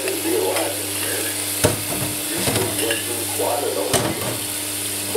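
A metal moka pot being handled and taken apart over a stainless steel sink, with two sharp metallic knocks about a second and a half in and again near four seconds, over a steady hum and hiss.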